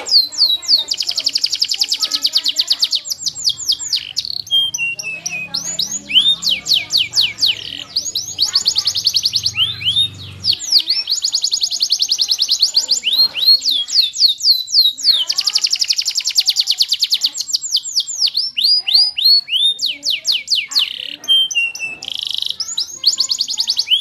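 Domestic canary singing: long phrases of rapid, high trills made of fast repeated down-slurred notes, each phrase changing speed and pitch, broken by short pauses.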